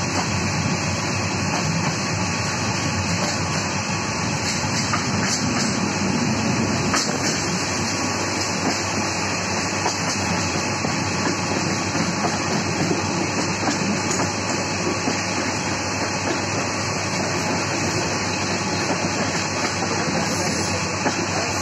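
Train moving along the track, heard from inside a carriage: a steady rumble and rush of running noise.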